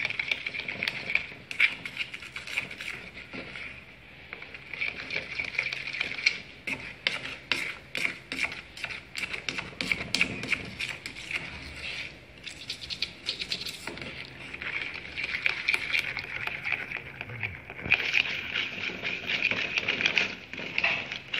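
A black spatula stirs and scrapes a butter and chocolate mixture in an aluminium pan on a gas stove. A quick run of clicks of the spatula against the pan comes from about six to fourteen seconds in, over a steady hiss.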